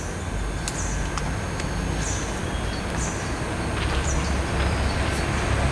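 Outdoor ambience: a steady low rumble with a bird's short high chirps repeating about once a second.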